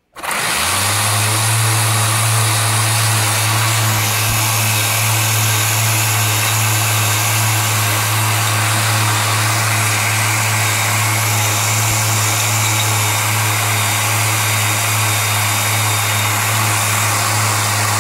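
3D-printed two-stage regenerative supercharger belt-driven by an electric motor, switched on at the start and up to speed within about half a second, then running steadily at about 6,000 rpm: a loud low hum under a strong rushing hiss. The plastic impeller is known to rub inside its housing at this point.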